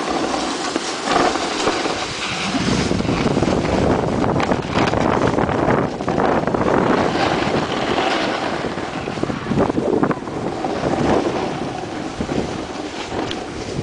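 Wind rushing over the microphone, mixed with the hiss and scrape of snow, while moving fast downhill with a snowboarder. The noise is steady, with uneven surges as the pace and the turns change.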